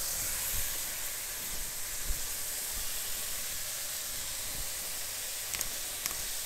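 Langoustines frying in hot vegetable oil in a pan, a steady soft sizzling hiss, with two faint ticks near the end.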